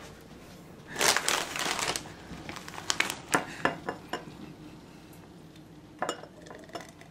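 A plastic Doritos chip bag crinkling for about a second, then several short knocks and clinks of drinking glasses and a glass blender jar on the counter as a thick smoothie is poured.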